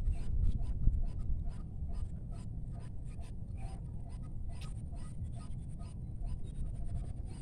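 Handling noise: irregular scratchy clicks and rubbing over a low rumble as the rifle scope is panned, with one louder knock about a second in.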